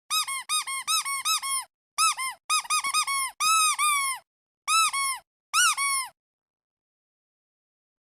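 Squeaky duck toy being squeezed over and over: quick runs of short squeaks, each rising then falling in pitch, with a few longer ones. The squeaking stops about six seconds in.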